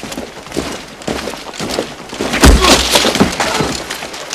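Forest battle clamour: a rapid run of cracks, snaps and crashes, with a heavy impact about two and a half seconds in.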